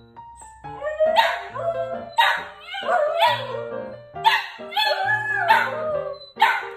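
Samoyed puppy howling: several wavering, rising-and-falling howls in a row, each about a second long, over background music.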